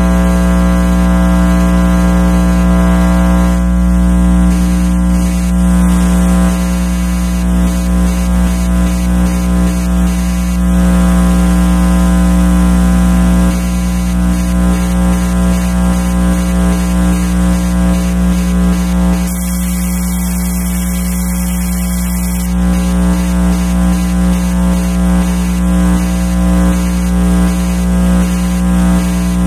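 Radio-frequency interference from electronic devices, picked up by an RFI probe and played as sound: a loud electrical hum and buzz made of many steady tones, pulsing in places and changing character every few seconds. About two-thirds in, a band of high hiss comes in for a few seconds, then drops out.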